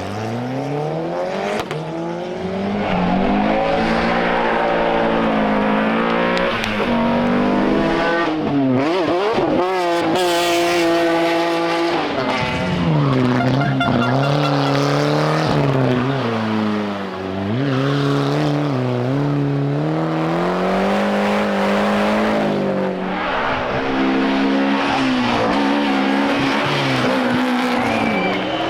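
Rally car engine revving hard, the revs swinging up and down over and over, with tyres squealing and skidding as the car slides.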